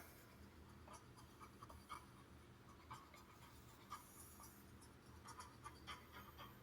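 Near silence: faint room tone with a few quiet, scattered clicks and light scratches, about one a second and a little closer together near the end.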